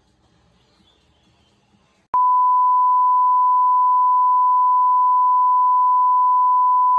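Steady, loud test-pattern tone, a single pure pitch like the beep that accompanies TV colour bars, starting suddenly about two seconds in and holding unchanged.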